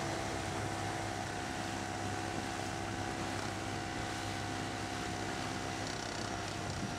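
Small outboard motor running at a steady speed on the water, an even hum over a light hiss.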